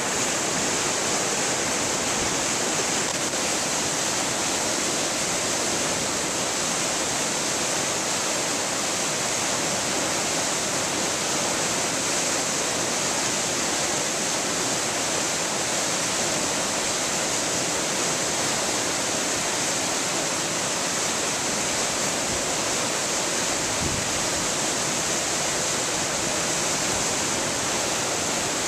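Swollen river in flood rushing through whitewater rapids: a steady, unbroken rush of churning water.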